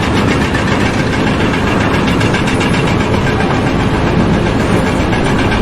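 Loud, steady machinery noise with a fast, even pulse, like a heavy engine running.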